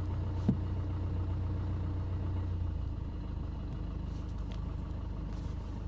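A steady low hum with no speech over it, like an engine idling; its tone shifts slightly about three seconds in.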